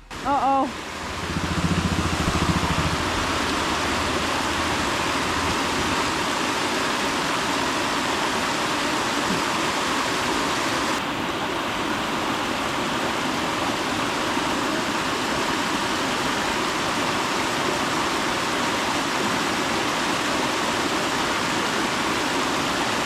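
Steady rushing of river water. Right at the start there is a brief loud pitched sound, then a low hum for the first few seconds.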